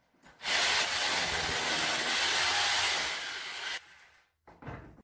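Electric power drill boring into a plaster wall: a steady, hissing run of about three and a half seconds that starts half a second in and stops abruptly.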